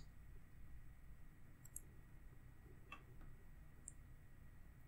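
Near silence with a few faint, short clicks spread through it, from a computer mouse.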